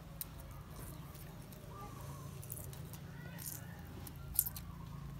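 Soft squishing and scraping of fingers pressing a lime and working wet chili paste in a stone mortar, with a few brief sharp clicks, the loudest about four seconds in, over a steady low hum.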